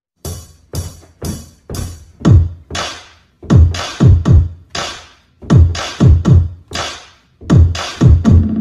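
Electronic music track with a drum-machine beat: deep bass drum hits that drop in pitch, about two a second in an uneven pattern with short gaps.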